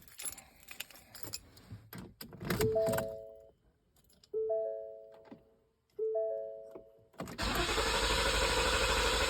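Keys and handling rustle, then the car's electronic warning chime sounds three times, each tone fading away. About seven seconds in, the starter of the 2019 Ford Explorer's 3.5 L V6 begins cranking the engine steadily without it firing, the intermittent no-start that the owner suspects lies in the fuel pump circuit.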